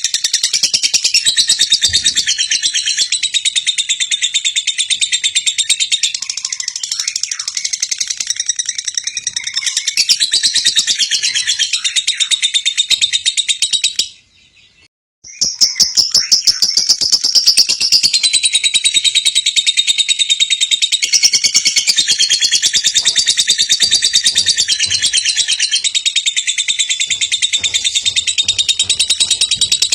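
Lovebird chattering in a fast, unbroken stream of high chirps and trills, used as a lure recording to set other lovebirds singing. It drops out for about a second halfway through, then resumes.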